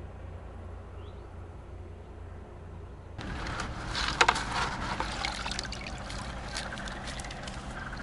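Quiet outdoor ambience, then, about three seconds in, a wire-mesh fish keepnet is lifted out of a bucket of water: water trickles and drips off the mesh, with sharp clicks and rattles of the wire, loudest about a second later.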